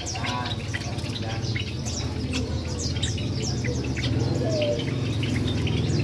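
Caged small songbirds chirping: many quick, short, downward-sweeping high notes in a rapid, overlapping stream, over a steady low hum.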